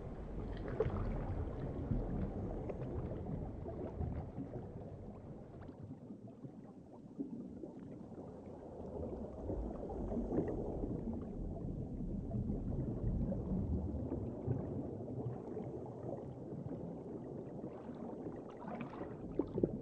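Underwater ambience: a low, shifting wash of water noise, dipping a few seconds in and swelling again, with no distinct events.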